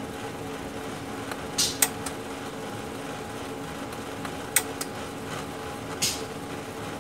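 HP LaserJet 1320 laser printer running with a steady hum while its paper-pickup solenoid clicks sharply three times. These are failed paper-pick attempts: the pickup roller never turns to grab the sheet, because a stuck paper sensor is jamming it.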